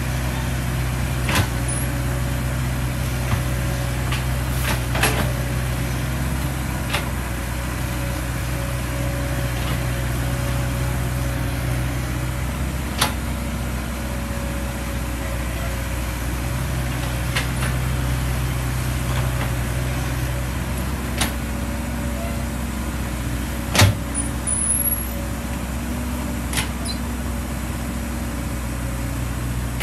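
Old Caterpillar hydraulic excavator's diesel engine running steadily under load while digging mud, with a steady whine over the engine and a few sharp knocks from the working arm and bucket, the loudest about three-quarters of the way through.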